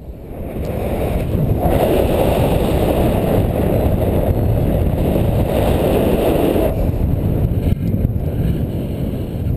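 Wind rushing over the camera microphone of a paraglider in flight, building over the first second or so and then holding steady as the glider banks into a turn.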